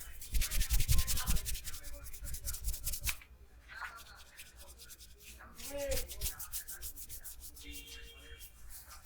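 Hands rubbing briskly over hair and scalp in a head massage: fast scratchy rubbing strokes close to the microphone, heaviest through the first three seconds and again briefly about six seconds in.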